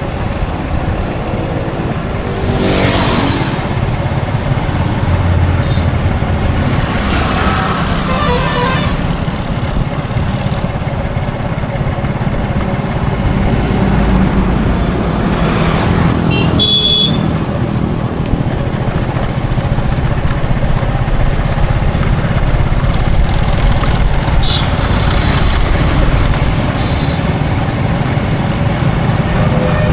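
Highway road traffic: a steady low rumble of engines with vehicles passing by three times, each rising and fading, and short horn toots, one about halfway through and another a few seconds later.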